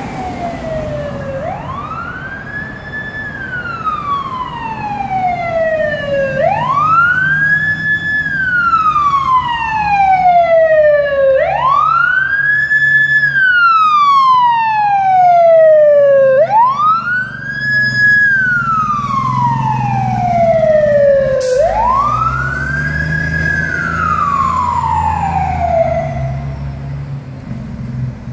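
Fire engine responding with its siren wailing in five slow cycles. Each cycle rises quickly, holds briefly at the top, then falls away over a few seconds, over the low running of the truck's engine. The siren grows louder as the truck approaches, is loudest mid-way, and eases off near the end as it moves away, with one short sharp click about three quarters of the way through.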